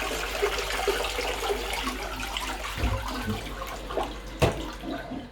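Toilet water running on after a flush, the cistern refilling, with a low knock about three seconds in and a sharp click a little later.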